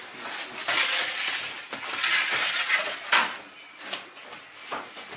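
Clattering and scraping of metal kitchenware, with a stretch of dense scraping noise in the first half and a couple of sharp knocks later.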